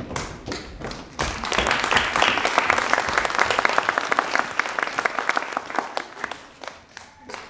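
Theatre audience applauding. The clapping swells about a second in and dies away near the end.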